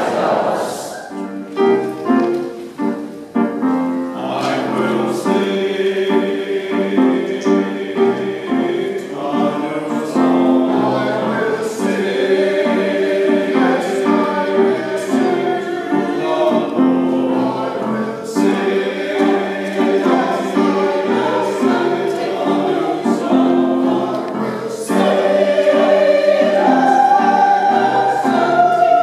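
Mixed church choir singing with grand piano accompaniment. The piano plays briefly on its own before the voices come in, and the choir grows louder near the end.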